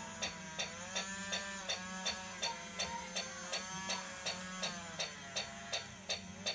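Small electric gear motor of a scale-model tank crane slewing its boom. A whine rises and falls over a steady low hum, with a sharp click about three times a second.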